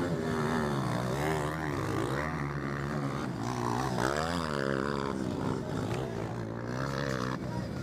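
230 cc motocross bike engines revving, their pitch rising and falling over and over as the riders throttle up and back off over the jumps; the loudest is a bike passing close about four seconds in.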